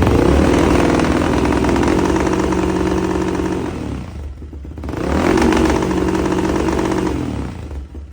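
Yamaha Raptor 660R quad's single-cylinder engine held at high revs twice, each time for about three seconds, with the revs falling away about four seconds in and again near the end.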